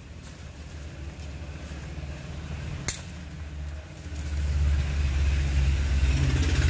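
Low, steady rumble of a motor vehicle's engine, swelling louder about four seconds in, with one sharp click near the middle.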